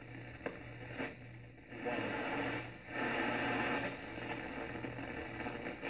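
Homebuilt breadboard superheterodyne radio receiver hissing with static through its speaker as its tuning capacitor is turned by hand across the AM broadcast band, the noise swelling and dipping as the tuning moves, over a steady low hum. A couple of sharp clicks come in the first second.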